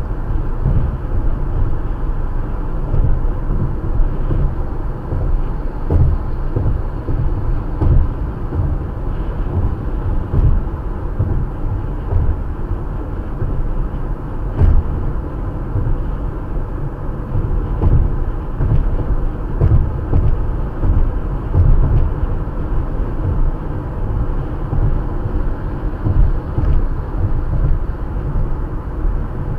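Road and engine noise inside a moving car at highway speed: a steady low rumble from tyres and engine.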